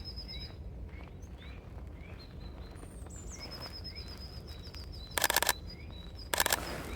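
Small songbirds singing and calling: repeated short rising chirps and a high, rapid trill. Twice near the end a camera shutter fires a short burst of quick clicks, the loudest sounds.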